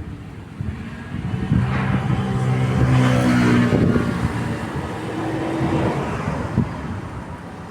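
A motor vehicle passing by: its engine hum grows to a peak about three seconds in and then fades away.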